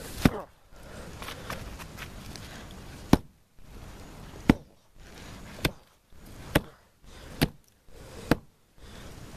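A wooden stick striking the ice of a small frozen garden pond: seven sharp whacks, about one a second from the middle on. The ice is too hard to break.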